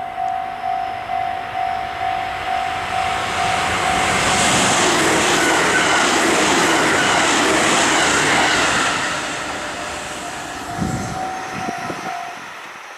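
Japanese level-crossing warning bell ringing in a steady ding about twice a second, then a train passing close by with a loud rush of wheels on rail that fades off after several seconds. The bell is heard again near the end, along with a few low thumps.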